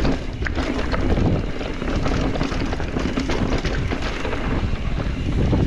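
Wind buffeting the camera microphone while a mountain bike is ridden over rough trail, with a steady low rumble and many small knocks and rattles from the tyres and bike over rocks.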